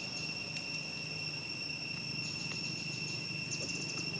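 Insects droning in a steady high whine, with a quick run of chirps about three and a half seconds in.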